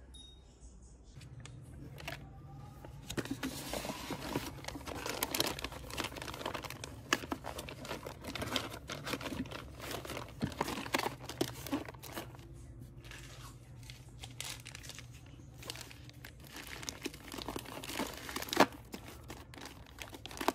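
Packaging crinkling and crackling as a handful of sheet face-mask packets is handled and slotted into a storage container, irregular crackles starting about two seconds in, with one sharp crackle near the end. A steady low hum sits underneath.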